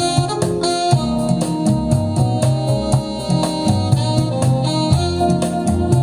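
Recorded instrumental music with a steady beat, played back through a pair of large hi-fi loudspeakers driven by the NFS225 prototype integrated amplifier on its M1 output module, heard in the room.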